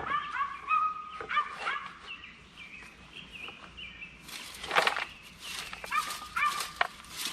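A dog yipping in a run of short, high-pitched calls, then again near the end, with a few brief noisy scrapes a little past halfway.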